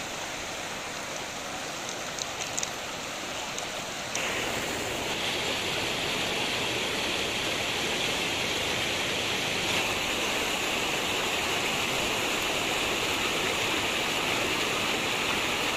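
Floodwater rushing across a road and spilling over its edge: a steady rush of water that becomes louder and brighter about four seconds in.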